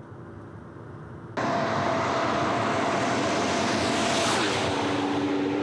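Toyota Supra with a twin-turbocharged 5-litre Century V12 driving past at speed. The steady engine note comes in suddenly about a second and a half in, over heavy tyre and wind noise, and drops in pitch as the car goes by about four seconds in.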